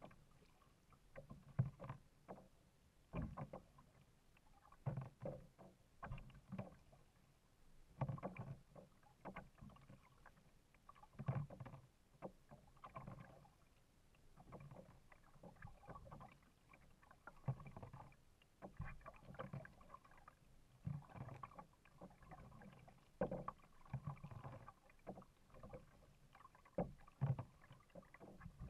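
Kayak paddle strokes: the blades dip in and pull through the water in a steady rhythm about every second and a half, each stroke a short splash with drips.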